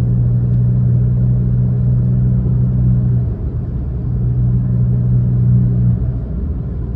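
Alfa Romeo Giulia 2.0T's turbocharged four-cylinder, with a muffler delete and a Vibrant bottle resonator in place of the stock resonator, cruising at about 70 mph near 2,000 rpm. Inside the cabin it is a steady low exhaust drone over road noise, easing briefly about three seconds in and again near the end.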